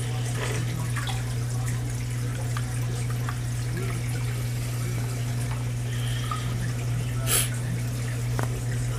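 Water trickling and dripping over a steady low hum, with small splashes and clicks as coral frags are handled in a container of aquarium water; a short splash about seven seconds in.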